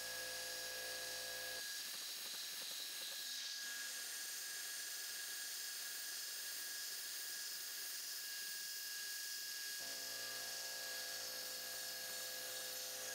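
Converted Grizzly G0704 CNC milling machine running its spindle at 3000 RPM, a 1/4-inch four-flute carbide end mill clearing a pocket in an aluminum block. It gives a quiet, steady whine over a hum.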